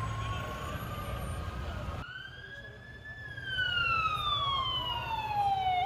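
Emergency vehicle siren wailing amid street noise. About two seconds in it comes through clearly: the pitch climbs briefly, falls slowly, then sweeps sharply up again at the end.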